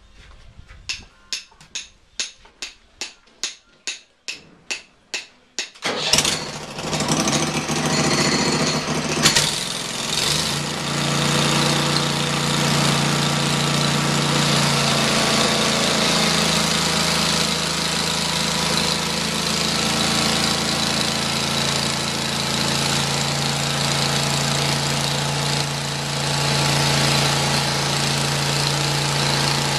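A run of sharp clicks, about three a second and growing louder, then about six seconds in the Hud-Son Oscar 36 bandsaw mill's engine starts and runs steadily with a low hum as the sawhead travels along the log.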